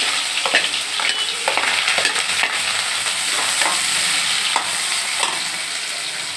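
Chopped onions and green chillies sizzling in hot oil in a metal kadai, stirred with a perforated metal slotted spoon that clinks and scrapes against the pan in short strokes through most of it. The sizzle eases slightly toward the end.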